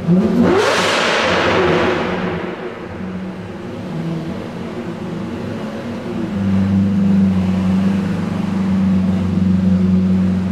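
Straight-piped Lamborghini Murciélago V12 revved once, sharply, at the very start, the loud exhaust blast fading over about two seconds. It then settles to a lower running note, and from about six seconds in holds a steady deep drone as the car pulls away.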